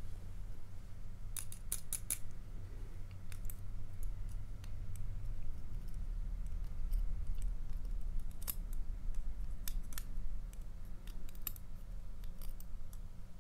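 Sharp, irregular metallic clicks of steel tweezers probing and scraping inside a lock cylinder's shell while a pin and spring are fished out, with a quick run of four clicks near the start and single ones after, over a low steady hum.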